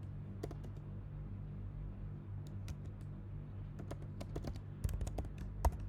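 Computer keyboard keys being typed while a password is entered: scattered keystrokes, coming faster and more closely spaced near the end, over a steady low hum.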